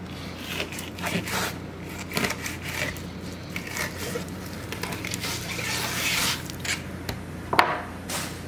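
A flexible fillet knife sawing back and forth along a plastic cutting board as it slices a fish fillet off its skin, a run of short scraping strokes. A sharper knock comes near the end.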